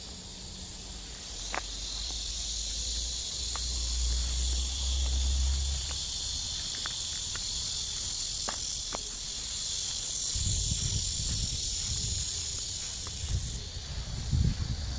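A steady high-pitched insect chorus that keeps on unbroken. From about two-thirds of the way through come uneven low thuds of footsteps.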